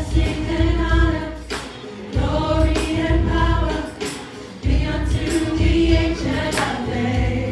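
Gospel choir singing a worship song with band backing: three long held sung phrases over bass and percussion.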